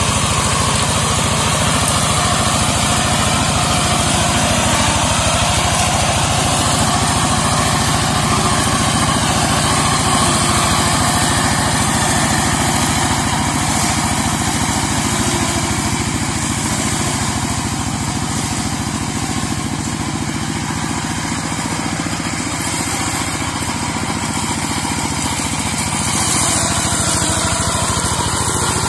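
Two-wheel hand tractor, modified as a brush mower, running steadily as it clears undergrowth and leaf litter. It grows a little quieter past the middle and louder again near the end.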